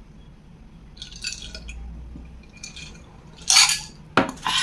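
Soft swallowing gulps of iced apple juice drunk from a glass, then a short hissing burst and a sharp knock near the end as the glass is put down on the table.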